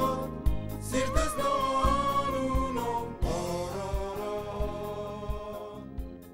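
Band music fading out at the close of a song: long held notes over a steady low beat, growing quieter throughout.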